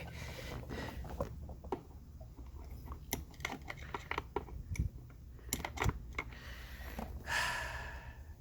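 Irregular light clicks and taps of a hand screwdriver and plastic console trim as a screw is driven into a car's plastic center console, with a short rustle near the end.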